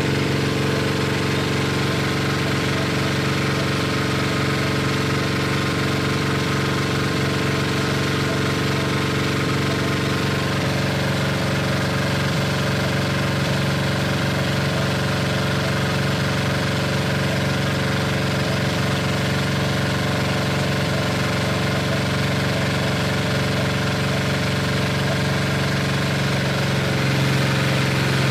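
Small stationary engine running steadily, driving a bowl-type meat grinder that chops beef into bakso dough. Its pitch shifts slightly about ten seconds in, and the low hum grows louder near the end.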